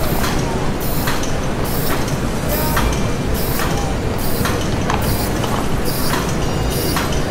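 Heavy industrial machinery running: a steady loud rumble with a sharp mechanical stroke repeating evenly, about three every two seconds.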